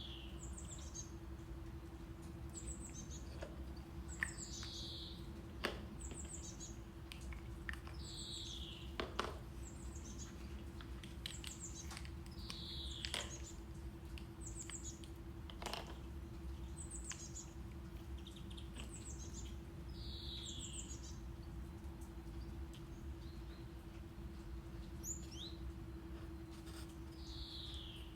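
Recorded birdsong: a bird repeating a quick descending chirp about every two seconds, over steady low brown noise with a constant faint hum. A few sharp clicks stand out as the loudest moments.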